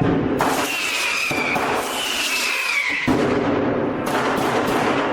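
Street fireworks going off: firecrackers banging repeatedly amid dense crackling, with two whistling fireworks whose whistles drift down in pitch for about a second each.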